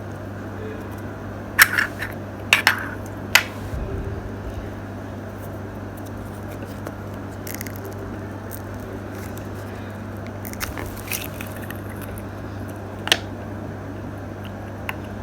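Handling noise: a few short clicks and rustles, several in the first few seconds and one more about 13 seconds in, over a steady low hum.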